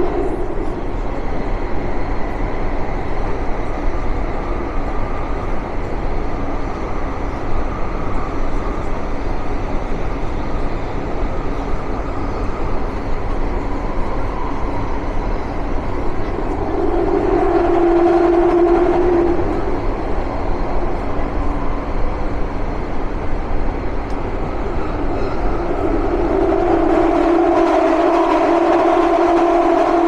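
Jubilee line Tube train running through a tunnel, heard from inside the carriage: a steady loud rumble of wheels on rail. A pitched whine swells up briefly about halfway through and again for the last few seconds.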